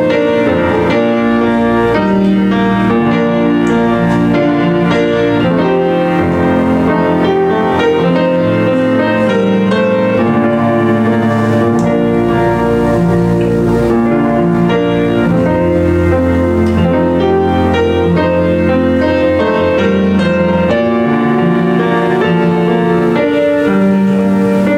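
Piano music playing slow, held chords that change every second or two, at a steady level.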